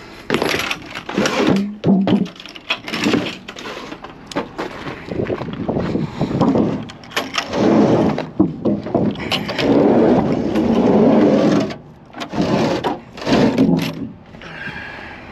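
Paint cans and buckets being slid and moved about in a cargo van's load area: repeated scraping, with sharp knocks as they are set down or bump each other.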